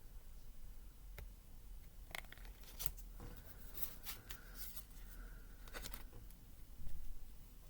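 Tarot cards being handled: a series of short, crisp scrapes and flicks as cards are slid against each other and laid down, with a dull bump near the end.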